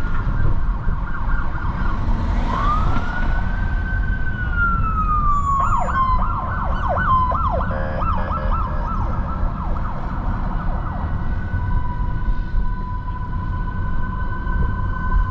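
Emergency vehicle siren: a slow rising and falling wail, then a fast yelp for about five seconds, then steadier tones, over the low rumble of city traffic.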